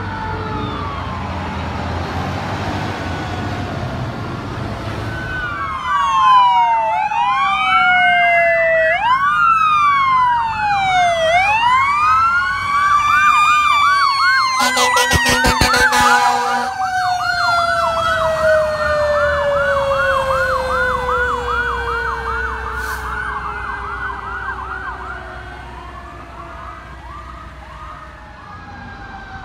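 Several emergency-vehicle sirens sounding at once: wailing tones sweeping up and down, layered with a fast yelp, over a low engine rumble at first. There is a brief harsh burst about halfway through, and the sirens fade near the end.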